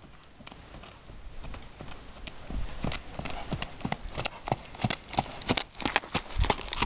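Horse's hooves striking dry dirt, about four beats a second, faint at first and growing louder as the palomino approaches and passes close by.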